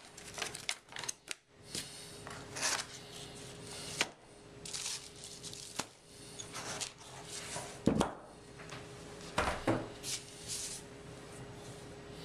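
Hands unpacking a hard carry case: plastic wrapping and packing rustling, with scattered clicks and two heavier knocks about 8 and 9.5 seconds in as items are moved and the flashlight is lifted out.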